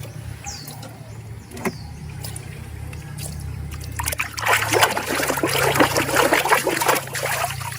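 Water trickling and splashing as a muddy plastic toy animal is washed, the splashing getting busier and louder from about four seconds in.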